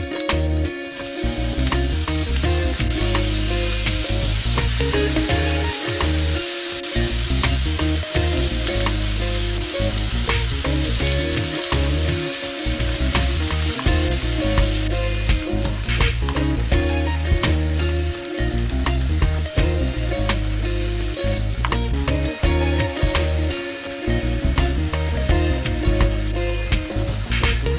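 Pork and sliced onion sizzling loudly in a hot non-stick frying pan as the raw meat goes in about a second in, with a wooden spatula scraping and tapping against the pan as it is stirred.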